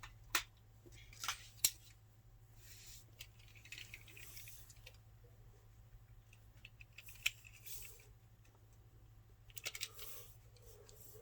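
Light handling noise of plastic Beyblade parts: a few sharp small clicks scattered through, with soft rustling in between.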